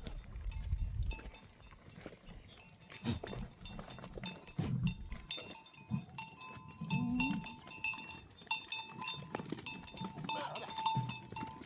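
A herd of goats and sheep, their bells ringing on and off, with now and then a short low bleat.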